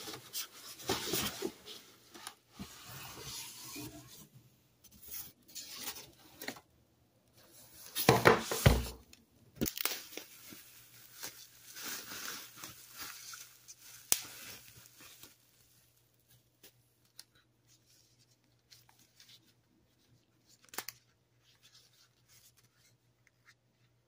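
Packaging being opened and pulled off: cardboard box flaps and a plastic wrap bag crinkling and tearing, with one loud thump about eight seconds in. After about fifteen seconds the rustling stops, leaving a few light clicks of hard plastic parts being handled.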